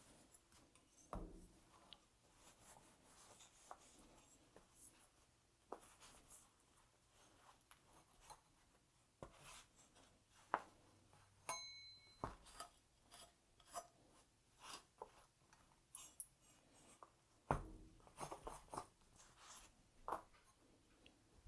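Faint hand sanding of a rusty snowmobile exhaust: irregular scratchy strokes with a few light knocks. A short ringing ping comes about halfway.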